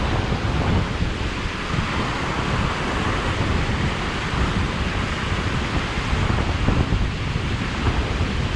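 Steady rushing noise of wind buffeting the microphone, mixed with water pouring from a canal overflow.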